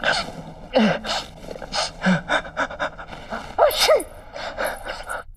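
A man with a head cold gasping and sniffing in a string of short, sharp breaths, with two drawn-out voiced 'aah' sounds about three and a half seconds in: the build-up to a sneeze.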